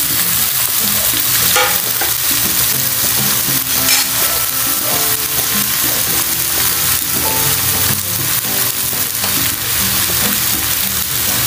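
Chunks of raw green papaya sizzling steadily in hot oil in a nonstick pan, just tipped in over sautéed onion and dried anchovies.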